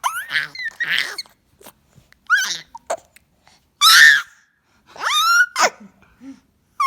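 A run of short, high-pitched squeals and squeaky vocal noises, several gliding upward in pitch, broken by breathy sounds.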